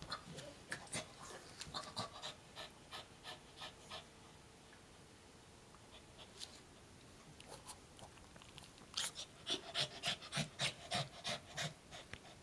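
Small dog panting in quick, rhythmic breaths, with a pause of a couple of seconds in the middle and faster panting near the end.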